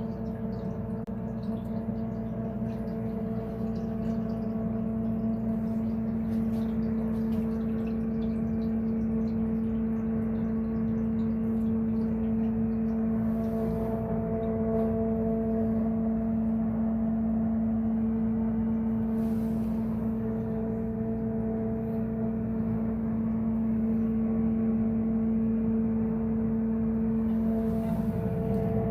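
Sump pump motor running with a steady, even hum.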